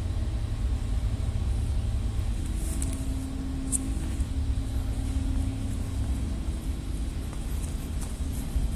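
A steady low rumble with a fainter hum over it, and a few light ticks.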